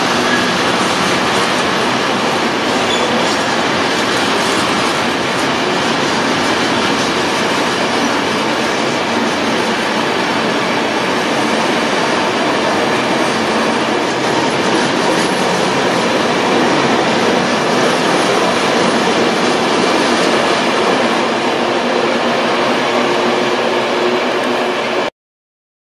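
A train passing through a station at speed: steady, loud rolling noise of steel wheels on the rails that cuts off suddenly near the end.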